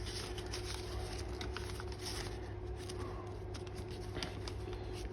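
Faint rustling and light ticks of an old folded sheet of paper being handled and opened, over a steady faint hum.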